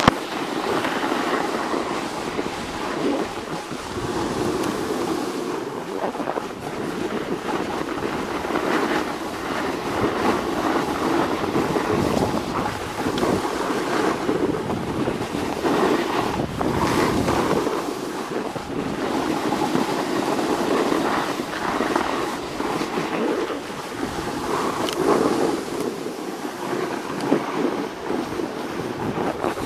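Continuous scraping hiss of sliding over packed snow on a groomed run, swelling and easing with the turns, mixed with wind buffeting the microphone.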